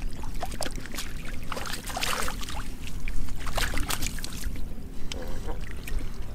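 Mudfish thrashing and splashing in shallow muddy water as hands grab at them: a string of short wet slaps and splashes, with a bigger splash about two seconds in.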